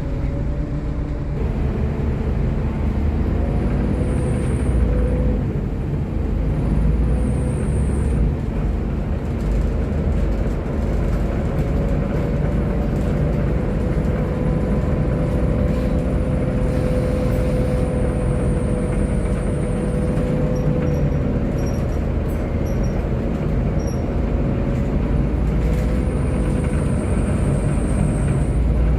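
Volvo B7TL double-decker bus heard from inside while under way: the engine and drivetrain running steadily, with a whine that holds at one pitch and shifts a little over the ride.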